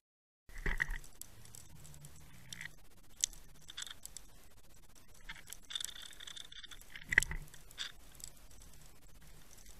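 Underwater sound picked up inside a Waterwolf camera's waterproof housing: scattered clicks and ticks over a low background, with two sharper knocks, one about a second in and the loudest about seven seconds in. It starts with half a second of dead silence.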